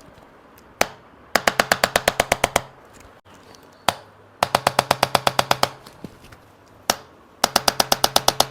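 Handheld electric chiropractic adjusting instrument striking the lumbar spine in three runs of rapid clicks, about ten a second, each run a little over a second long, over a faint motor hum. It is delivering a percussive adjustment to the L4-L5 vertebrae.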